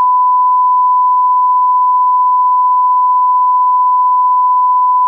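Broadcast line-up test tone: a loud, steady pure beep held at a single pitch, the reference tone sent with colour bars when a feed is off programme.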